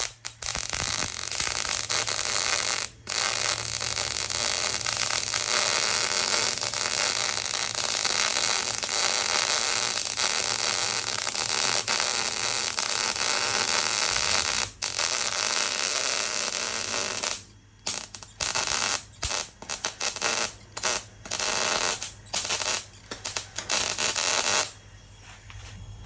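Electric arc welding on a steel body panel: a continuous crackling weld for about seventeen seconds, then a run of short welds in quick succession that stop about a second before the end, with a steady low hum underneath.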